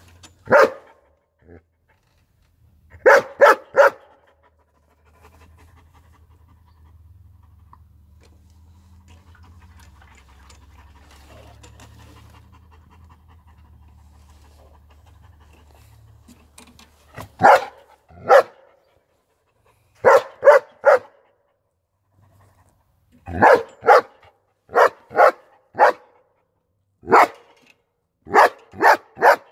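Young long-coated German Shepherd barking in short runs of two or three sharp barks, with a long pause in the middle where it pants faintly. The barks then come thick and fast over the last twelve seconds.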